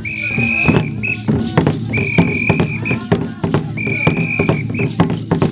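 Music in which a high whistle is blown in long, steady blasts about every two seconds, three times, over fast, busy percussion.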